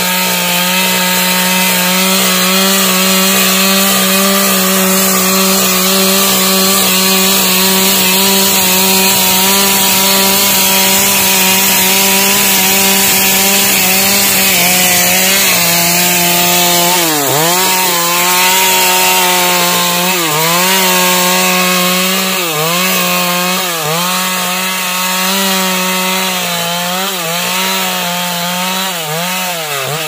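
Two-stroke chainsaw ripping a log lengthwise into boards, its engine running steadily under load. In the second half the revs drop and climb back several times, with a deep dip near the end.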